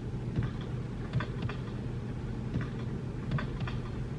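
A low, steady rumbling drone with a few faint, irregularly spaced clicks: the atmospheric intro of a music video before the song comes in.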